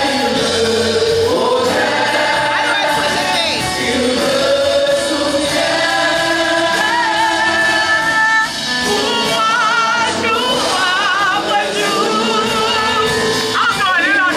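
Gospel choir singing, with long held notes that waver with vibrato.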